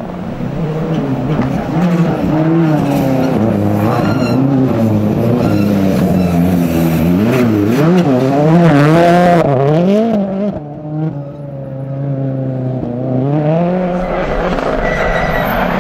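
Rally car engines revving hard through corners, one car after another, among them a Ford Fiesta WRC. The pitch swings up and down quickly with throttle and gear changes. The sound drops briefly about ten seconds in, as one car gives way to the next.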